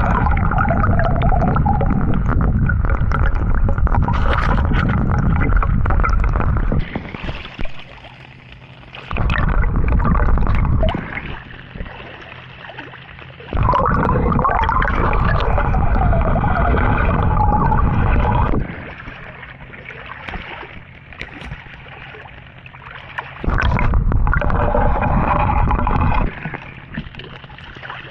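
Water sloshing and gurgling close to the action camera's microphone, coming in loud stretches of several seconds each, with quieter stretches between them.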